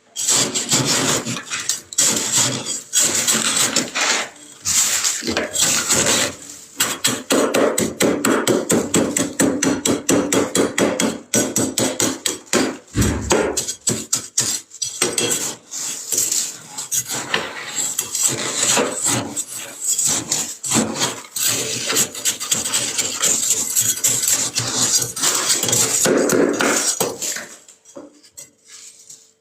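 Thick frost in a freezer being scraped in rapid, repeated rasping strokes. It stops about 27 seconds in.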